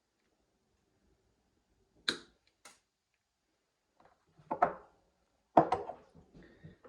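A few sharp knocks and clicks of hard parts or tools being handled during a plumbing repair: two light clicks, then louder clattering twice in the second half, with smaller knocks trailing after.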